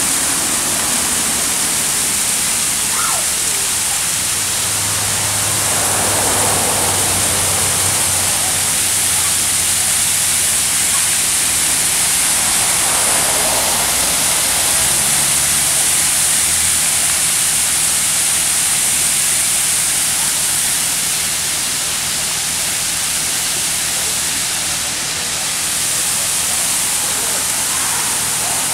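Tall, narrow waterfall pouring down a rock cliff: a steady, hissing rush of falling water.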